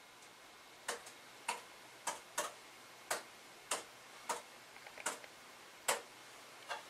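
Laptop being clicked: about ten short, faint clicks at uneven intervals, roughly one every half second or so.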